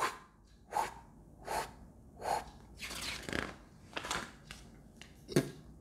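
A run of short, soft breathy puffs, about one every three-quarters of a second. Partway through, a paper picture-book page is turned.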